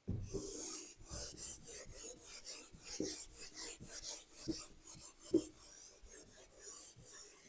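Faint scratchy writing strokes in quick succession, about three a second, trailing off about five and a half seconds in.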